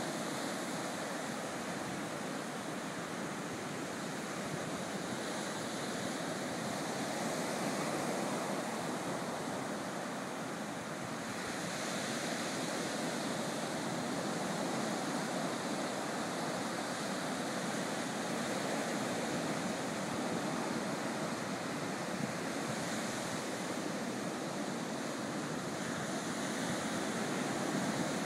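Small ocean waves breaking and washing up a sandy beach: a continuous hiss of surf that swells now and then as a wave comes in.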